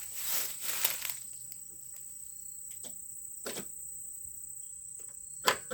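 Starter solenoid of a Kubota L4200 tractor clicking as the key is turned, with no cranking: a single click about three and a half seconds in and a louder one near the end. The owner takes the click-and-nothing for a bad battery connection.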